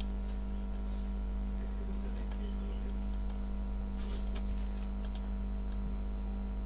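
Steady electrical hum with many evenly spaced tones, and a few faint clicks of a computer mouse and keyboard.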